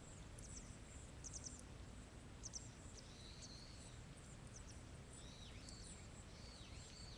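Faint outdoor ambience: small birds chirping, with a cluster of short high chirps in the first two seconds and a few dipping, arching calls in the second half, over a low steady rumble.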